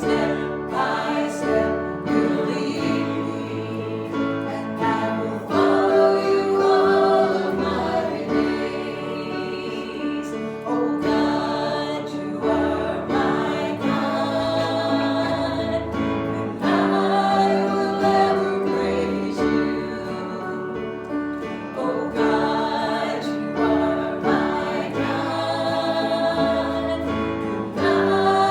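Church congregation singing a worship song as a group, with instrumental accompaniment.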